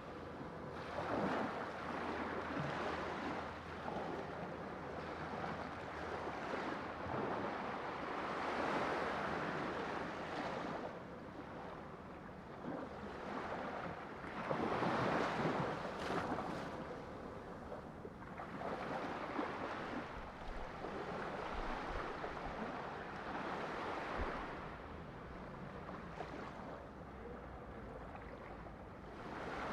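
Sea waves breaking and washing in, a continuous rush of surf that swells and fades every few seconds.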